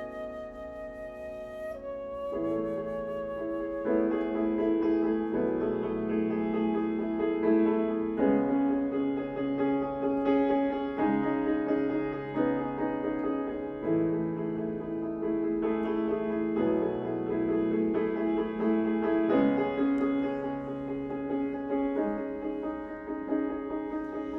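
Flute and piano playing a contemporary classical piece: the piano repeats struck chords about every one and a half to two seconds under sustained flute lines, building from a quieter opening.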